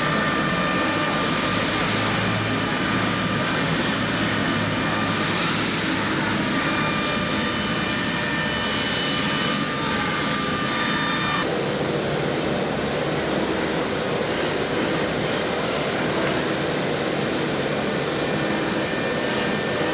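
CNC router spindle running with its end mill cutting into a styrofoam block: a steady whine of several high tones over a constant rushing noise. About eleven seconds in, the tones change.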